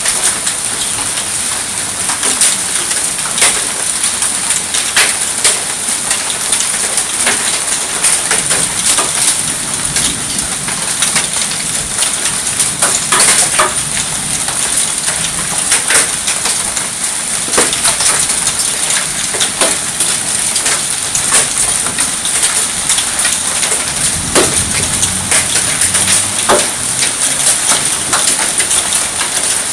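Hail and heavy rain pelting wet brick pavers: a steady hiss of rain with many sharp, irregular clicks of small hailstones striking the hard surface.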